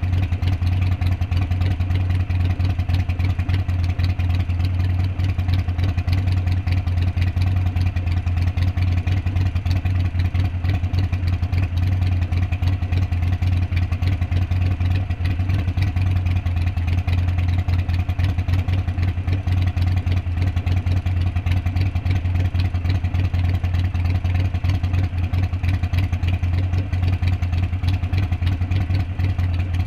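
Harley-Davidson V-twin motorcycle engine idling steadily.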